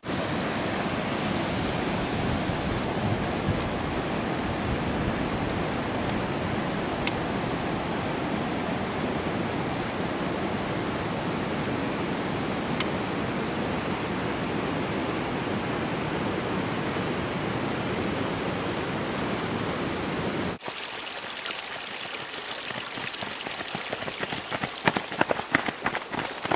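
Steady rushing water of a mountain stream, cut off abruptly about twenty seconds in. After that comes a quieter background with the crunch of runners' footsteps on a rocky trail, most marked near the end.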